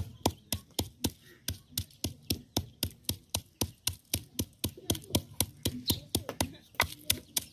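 Pestle pounding green cardamom pods in a carved wooden mortar: steady, even knocks at about four strokes a second.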